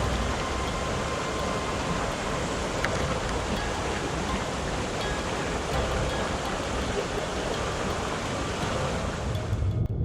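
Mountain stream water rushing, a steady even rush that cuts off suddenly near the end.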